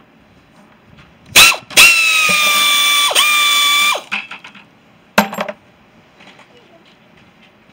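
Handheld power drill motor: a short trigger blip, then a steady whine for about two seconds with a brief dip and pick-up partway through, and another short blip near the end.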